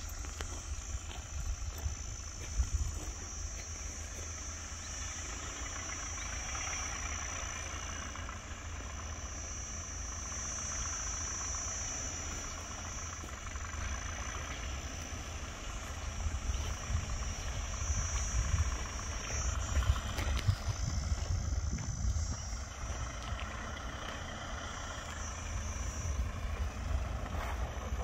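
Force Gurkha 4x4's diesel engine at low revs as it crawls over dirt mounds, heard as a low rumble. A steady high chirring of insects runs over it.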